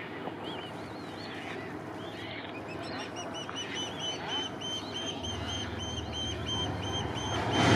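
BNSF freight train approaching, its low rumble coming up in the second half and growing louder near the end. Over it, a high-pitched call is repeated about three times a second.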